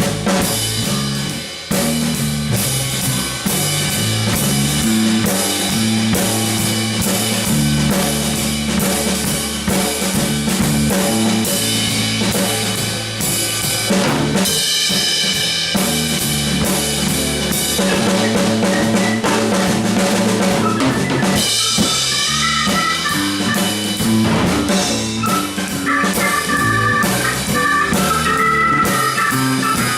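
Live instrumental jam with the drum kit to the fore, snare and rimshot hits keeping a steady beat over a moving bass-guitar line, with keyboards. In the last third a higher melody line of held notes comes in over the groove.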